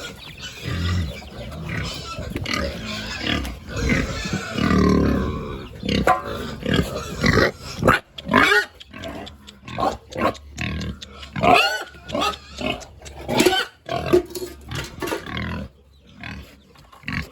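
Pigs calling, with a run of short, pitched calls coming about one or two a second from about six seconds in.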